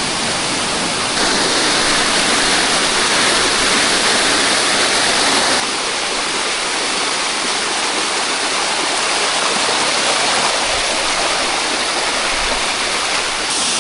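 Steady, loud rush of water from the Tumpak Sewu waterfall. The level drops abruptly about five and a half seconds in and shifts again near the end.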